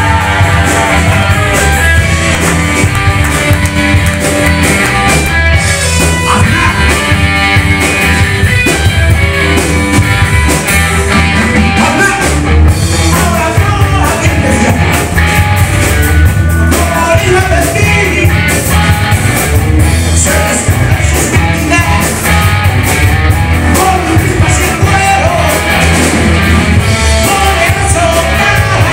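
Live rock band playing loud and without a break: electric guitar, electric bass and drum kit.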